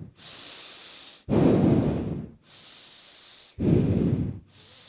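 A woman breathing heavily with a growl: two loud, rough, low exhalations about a second each, with quieter hissing inhalations between them.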